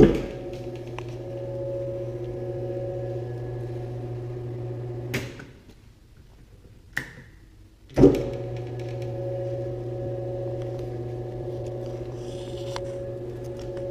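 BEcom BE-HYM 75 fork mixer starting with a thump and running with a steady hum. It stops about five seconds in, there is a short click near seven seconds, and it starts again with a thump about eight seconds in and runs steadily.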